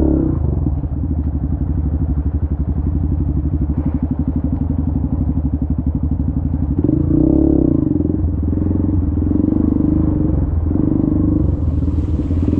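Dirt bike engine chugging at low revs as it is ridden slowly through muddy floodwater. The revs pick up briefly about seven seconds in.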